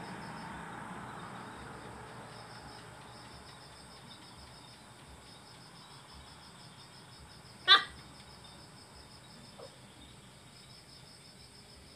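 Crickets trilling steadily, with one short, high-pitched dog bark about two-thirds of the way through. A low background rumble fades away over the first few seconds.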